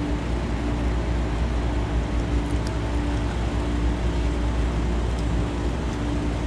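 A steady low mechanical hum under a constant rushing noise.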